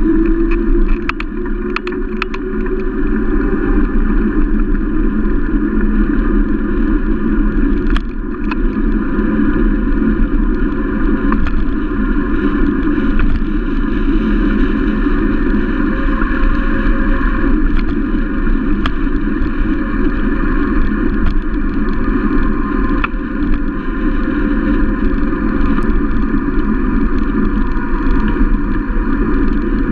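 Steady wind buffeting a bike-mounted camera's microphone, mixed with the hum of a knobby mountain-bike tyre rolling on asphalt. A few sharp clicks and knocks from the bike over bumps.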